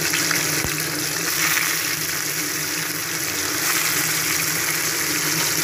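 Ghurjauli (threadfin) fish pieces sizzling steadily as they fry in hot mustard oil in a kadai.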